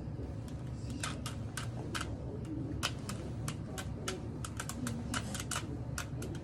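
Rubik's cube being twisted by hand, its layers turning with quick, irregular plastic clicks, several a second.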